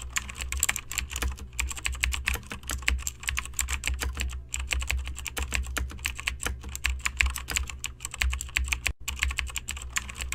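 Rapid typing on a keyboard: a dense, uneven run of sharp keystroke clicks, several a second, over a steady low hum.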